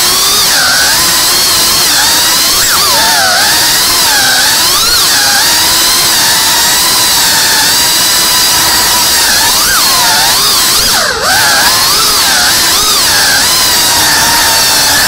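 Whoop FPV drone's motors and propellers whining, the pitch wavering up and down constantly with the throttle. About eleven seconds in the whine dips briefly, then climbs back.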